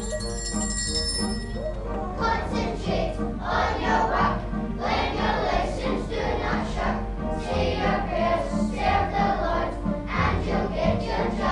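Music with singing voices over a steady low hum, opening with a bright bell-like ringing that stops about two seconds in.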